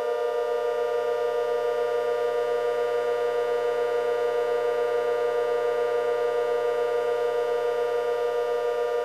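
Siren sounding a steady held tone, rich in overtones, with a fast regular pulsing and no rise or fall in pitch.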